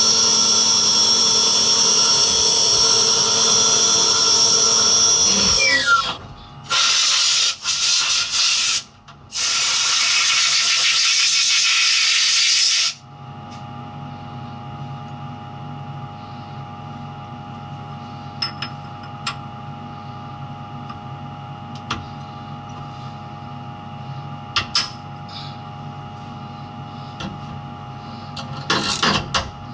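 A mini vertical machining centre cutting 6061 aluminium under coolant, with a steady spindle whine that winds down and stops about six seconds in. Then come loud hissing blasts of compressed air, a short one and then a longer one of about three seconds. After that the idle machine hums steadily, with a few sharp metallic clicks from the vise being handled.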